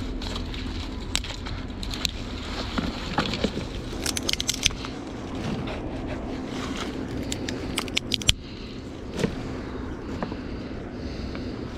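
Small dry twigs being snapped off brush by hand, with rustling branches and sharp cracks that come in quick clusters, over a steady low hum.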